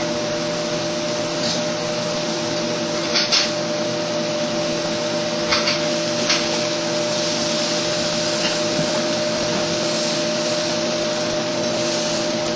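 Steak sizzling on an indoor grill: a steady hiss over a low hum, with a few short clicks.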